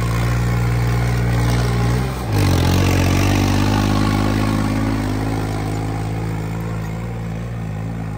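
Turbocharged diesel tractor engine running steadily. About two seconds in its pitch drops sharply for a moment, then it comes back louder and holds, slowly fading toward the end.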